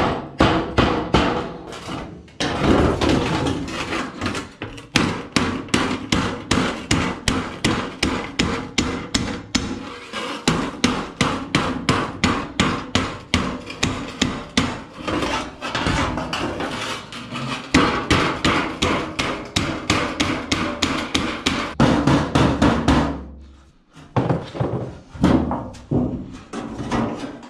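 A hammer striking metal in a quick, even run of blows, about four a second, each with a short ring. The blows pause briefly near the end.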